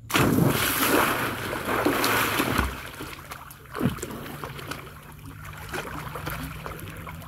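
A person jumping feet-first into a swimming pool: a loud splash starts suddenly and churns for a couple of seconds. Then quieter water sloshing and lapping as he swims, with one more short splash a little before the halfway point.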